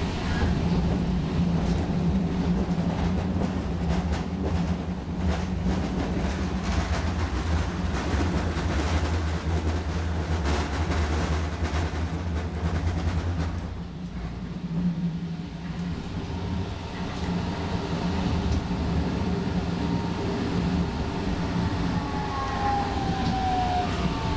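Inside an Alstom Citadis Spirit light-rail car running at speed: a steady hum from the motors and running gear over the rumble of wheels on track. Near the end a whine falls in pitch as the train begins to slow for the next station.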